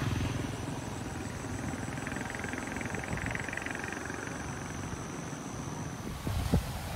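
Wind rumbling on a phone microphone outdoors, with a few sharper gusts buffeting it near the end and a faint steady high-pitched whine behind.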